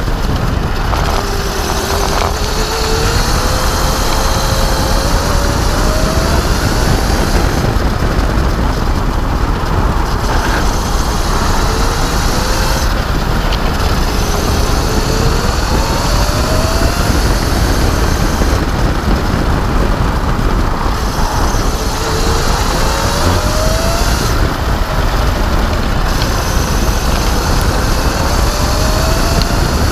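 Electric racing kart at speed: a thin motor and drive whine that rises slowly in pitch as the kart accelerates, several times, under heavy wind rush and tyre and road noise.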